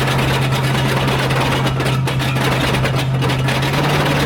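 Loud mechanical racket from a towed Dodge Dakota pickup. The broken driveshaft's leftover stub shaft is spinning and flailing underneath as the truck rolls, making a steady drone with rapid clattering knocks.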